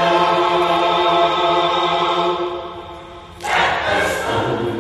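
Church choir singing, holding one long chord that fades away about three seconds in, then the voices come in again on a new phrase.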